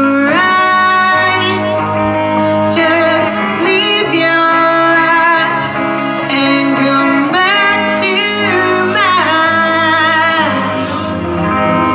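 Live rock band playing: electric guitar and drum kit under a woman's lead vocal singing long held notes that waver.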